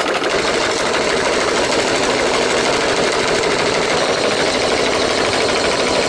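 iRobot Looj 330 gutter-cleaning robot running along a roof gutter with its auger spinning: a steady, loud motor whir with a fast, even chatter.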